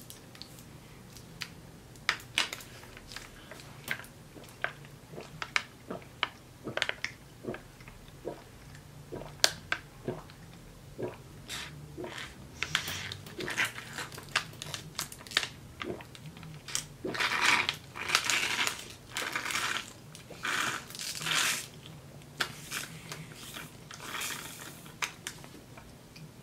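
Foil wrapper being crumpled and handled, giving a run of sharp crackles that grow denser for several seconds past the middle.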